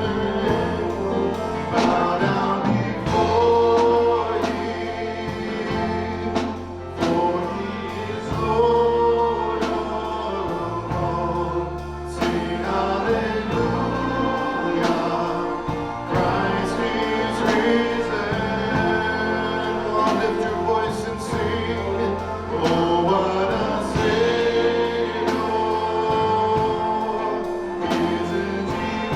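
Church worship music: a choir of singers over a band, with held bass notes and a steady drum beat.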